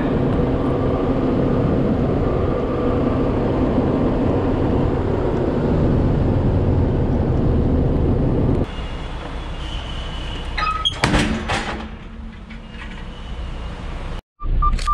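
Semi-truck diesel engine idling steadily; about two-thirds of the way in the sound drops suddenly to a quieter background, with a short cluster of knocks and rattles shortly after.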